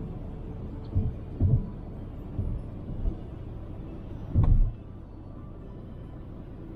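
Toyota RAV4 driving on a snowy highway: steady low road rumble, with a few irregular low thumps, the loudest about four and a half seconds in.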